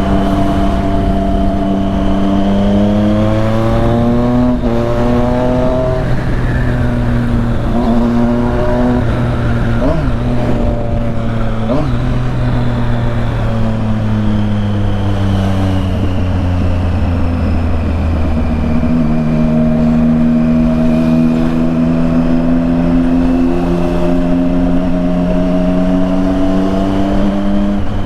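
Triumph Street Triple 675's three-cylinder engine through a full aftermarket exhaust under way: revs climb and fall back at several gear changes in the first twelve seconds or so, then hold a steady note, dipping once about nineteen seconds in before running on steadily.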